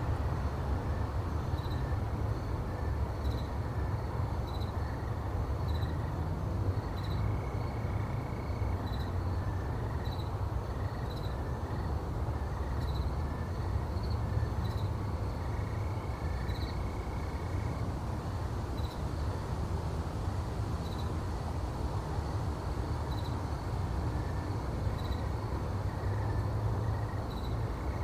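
Car being driven, a steady low engine and road rumble, with crickets chirping at a regular pace in the background.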